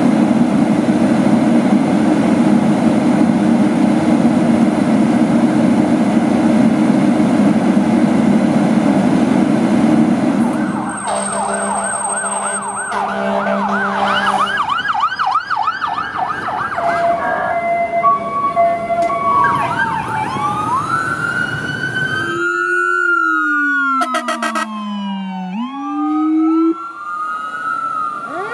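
A fire engine's engine running loudly and steadily for about ten seconds, then a string of fire-truck sirens: a fast yelp, a two-tone hi-lo, and several wailing sirens rising and falling over one another. Near the end a low siren tone slides down and back up.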